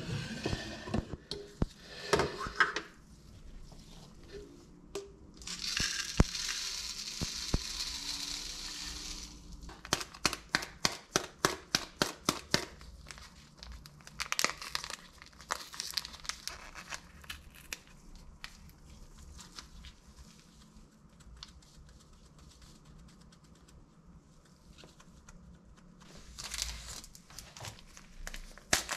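Gloved hands crinkling and tearing open a small paper sachet, in several spells of rustling and tearing. Earlier there is a steady rush lasting about four seconds, as of liquid poured into a plastic blender cup, followed by a quick run of clicks, about four a second.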